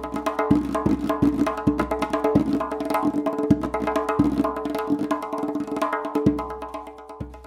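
Tonbak (Persian goblet drum) played solo: fast runs of light finger strokes on the rim and skin, punctuated every half second to a second by deep bass strokes on the middle of the head, the skin ringing between hits. The playing thins out and gets quieter near the end.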